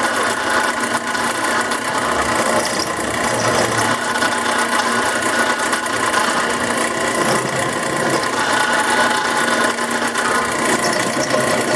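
Drill press running steadily while a countersink bit chamfers the drilled holes in a quarter-inch steel plate held in a machine vise.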